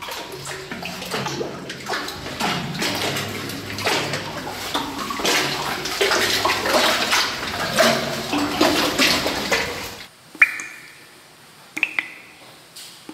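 Water splashing and sloshing as a caver wades through a flooded cave passage. About ten seconds in the splashing stops, and a few separate drips plink into the water with a brief ringing.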